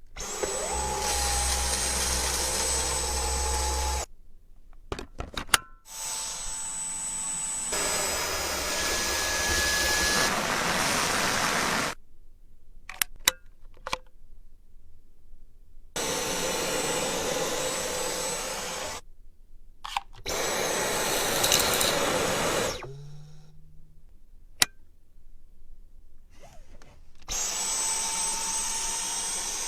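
Dyson Cyclone V10 cordless stick vacuum's motor switched on and off about five times, running a few seconds each time, with a high whine that rises at each start. Clicks and knocks sound in the gaps between runs.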